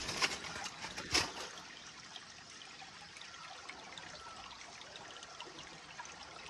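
Shallow stream trickling faintly and steadily over stones. Two brief knocks come in the first second or so.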